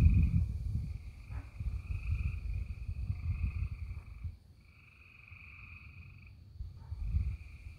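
A chorus of frogs trilling in long, steady, high trills of a couple of seconds each, with short gaps between them. Under it, a low rumbling noise is loud for the first four seconds, then stops, and returns briefly near the end.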